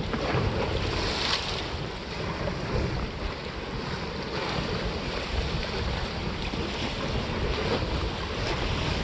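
Wind buffeting the microphone over sea waves washing against the rock breakwater, the wash swelling and easing a few times.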